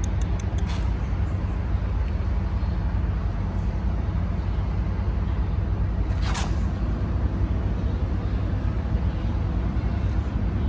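Steady low hum of a running motor or engine, with a single brief high squeak about six seconds in.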